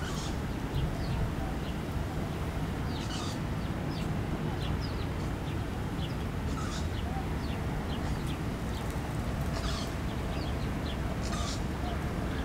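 Birds chirping, with many short high calls scattered throughout over a steady low background rumble.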